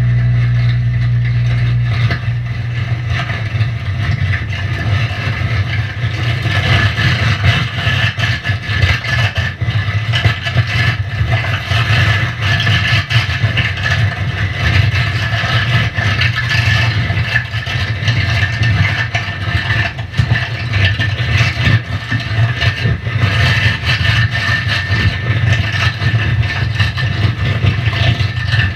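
Noise-music drone from an electric guitar laid flat and worked by hand through effects pedals: a loud steady low hum with a dense crackling, scraping texture over it that sets in about two seconds in.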